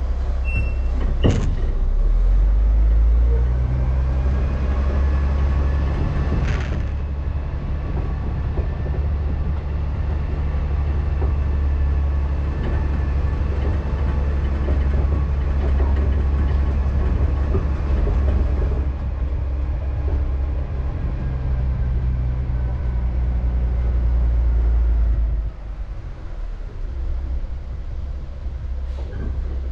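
Log truck's diesel engine pulling along a dirt road: a loud, deep, steady drone. A sharp knock comes about a second in, and the engine note drops off suddenly about 25 seconds in.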